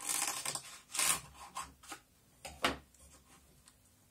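Fingers rubbing and scraping at the rim of a subwoofer speaker driver: a longer scrape at first, then four or five short scrapes, and quiet for about the last second.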